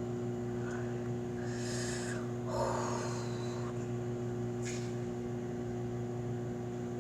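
Microwave oven running with a steady hum while slime heats inside. A short breathy sniff comes about two to three seconds in.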